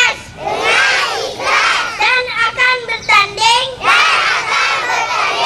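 Young children's voices chanting in a sing-song rhythm, led by a boy speaking into a handheld microphone.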